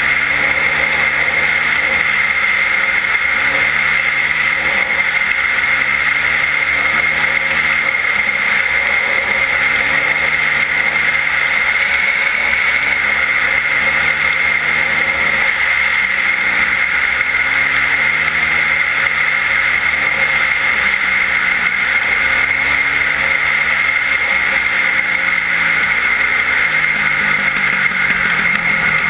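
Yamaha WR450F single-cylinder four-stroke enduro motorcycle with an Akrapovič exhaust riding under way, its revs repeatedly climbing and dropping every couple of seconds. A steady rush of wind noise runs over it.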